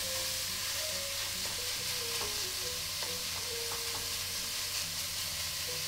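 Ground pork frying in hot oil in a stainless steel pot with a steady sizzle, while a wooden spoon stirs and breaks up the still-raw meat early in its browning.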